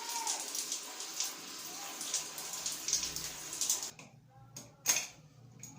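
Water splashing and trickling out of a leaking apartment shut-off valve as it is being taken apart, stopping about four seconds in. A couple of sharp clicks follow.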